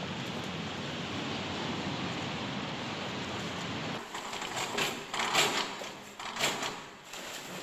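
A steady hiss of background noise, then from about four seconds in, water splashing as people jump into a swimming pool, the two loudest splashes about a second apart.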